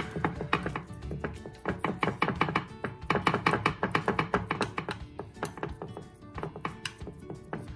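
A metal spoon tapping and scraping against a glass baking dish as it presses down a thick barfi mixture, in quick clusters of taps that are densest in the middle, over background music.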